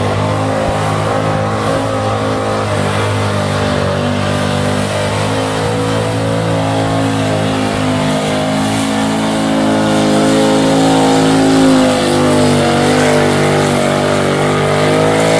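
Small-block Chevrolet V8 of a two-wheel-drive pickup running hard at high revs, under heavy load as it drags a weight-transfer pulling sled. The engine note holds fairly steady throughout, wavering slightly in pitch.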